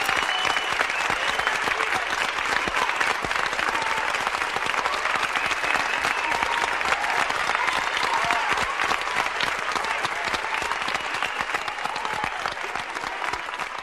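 Live concert audience applauding, with voices calling out and whistling over the clapping; the applause eases off a little near the end.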